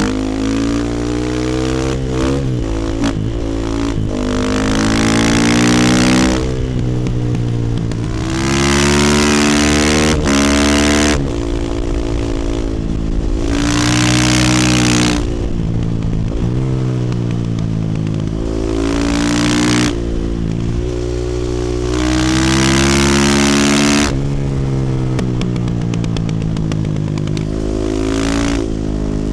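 Single-cylinder four-stroke engine of a 2018 Husqvarna FE450 supermoto, through an Akrapovic exhaust, under hard riding: the revs climb and fall over and over, with about five loud full-throttle pulls and the throttle backed off between them.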